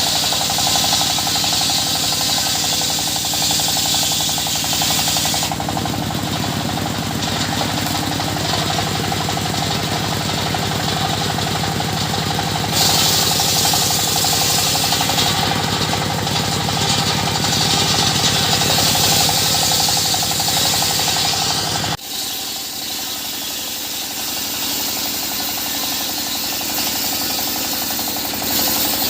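Wood-cutting circular saw running continuously with a dense rattling machine noise, its sound shifting sharply about 5 and 13 seconds in and changing abruptly about 22 seconds in.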